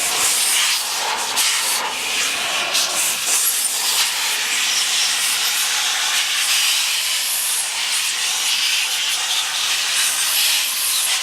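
Air blower running steadily, a loud hiss of rushing air, used to blow bees off honey frames during the harvest.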